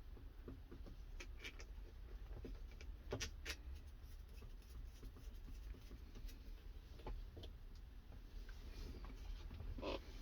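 Faint, scattered clicks and taps of hands handling wiring and a plastic wiring-harness connector being fitted together, over a low steady hum.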